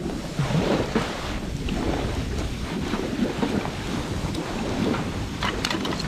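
Campfire burning: a steady rushing of flames and wind, with scattered crackles and pops and a quick run of sharp pops near the end.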